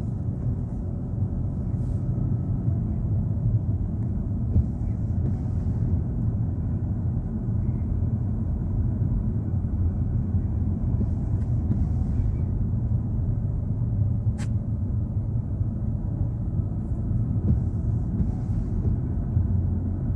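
Steady low rumble of a car's engine and tyres heard from inside the cabin while driving, with one faint click about fourteen seconds in.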